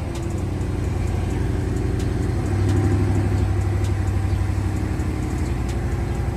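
2021 BMW M550i's twin-turbo 4.4-litre V8 idling steadily just after start-up, heard from inside the cabin. The idle grows a little louder about two and a half seconds in.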